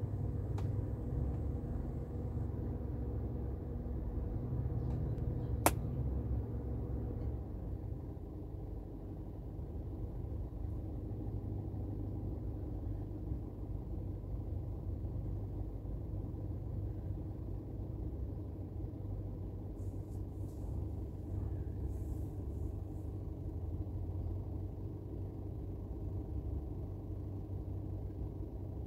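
Steady low rumble inside a car cabin, with a faint engine hum that fades out about seven seconds in. A single sharp click comes just before that.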